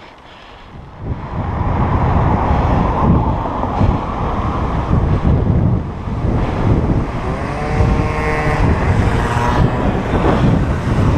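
Wind rumbling on the microphone of a cyclist's camera while riding, with a motorbike engine passing close from about seven seconds in, its note rising in pitch.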